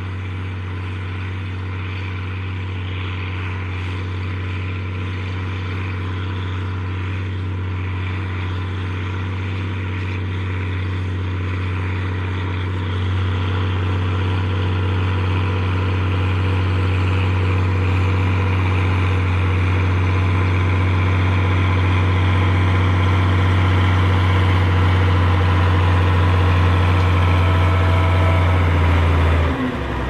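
Fiat 1500 tractor's diesel engine working under steady load, pulling a four-furrow mounted plough through stubble. It makes a constant low drone that grows gradually louder, then drops off abruptly just before the end.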